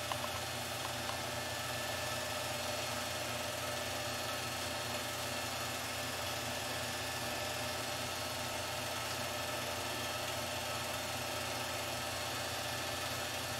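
Steady mechanical whir and hum of a home-movie film projector running.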